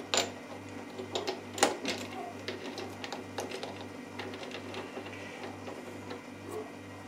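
Metal clicks and clinks of a chuck key turning in a metal lathe's chuck as a small steel ring is clamped in the jaws, with one sharper knock about a second and a half in. A steady low hum, pulsing slightly, runs underneath.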